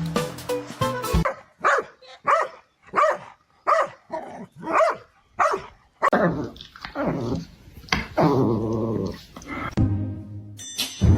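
A dog barking about eight times in a steady run, then giving several longer, drawn-out growling calls that waver in pitch. Background music plays briefly at the start and returns near the end.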